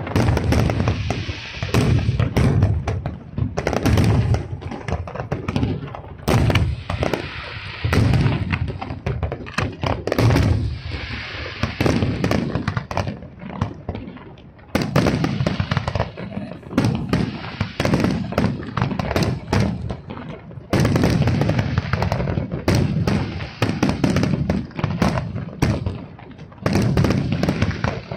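Aerial firework shells bursting in a rapid, uneven barrage of deep booms and sharp cracks, with a short lull about halfway through before the bursts pick up again.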